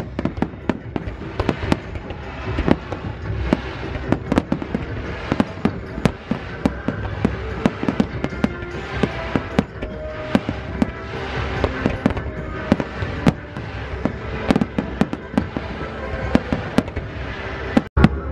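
Aerial fireworks display: a rapid, continuous run of bangs and crackling from bursting shells, with music playing underneath.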